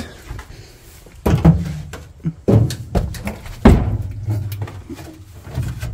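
Several dull thumps and knocks, the loudest about three and a half seconds in, from climbing into a car and releasing the rear hatch latch by hand because the latch release does not work.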